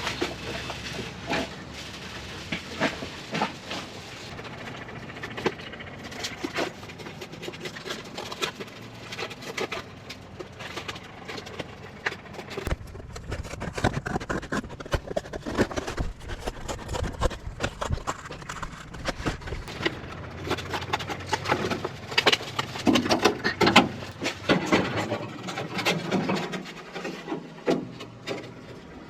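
Irregular scraping, rubbing and knocking of hands at work, a run of short clicks and taps, with a low rumble between about 13 and 20 seconds in.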